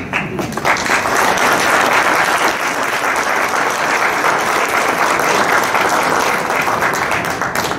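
Audience applauding, building within the first second, holding steady, then stopping just before the end.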